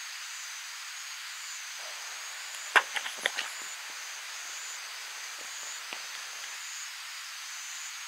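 A quick cluster of sharp clicks and knocks about three seconds in, then a single click a few seconds later: a telephoto lens being handled and clamped onto a tripod head. A steady hiss lies underneath.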